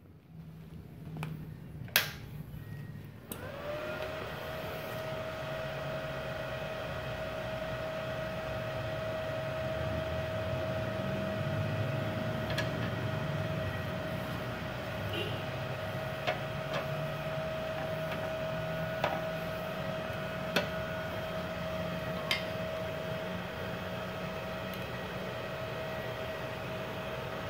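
MultiPro 120A-ST IGBT inverter welding machine switched on about three seconds in, its cooling fan spinning up and then running with a steady whine over a low hum. A few sharp clicks come later as the welding cable plugs are pushed into its front sockets.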